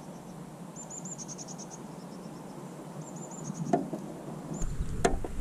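Runs of rapid, high-pitched chirps from a small bird, repeated twice. A couple of sharp knocks and wind rumble near the end.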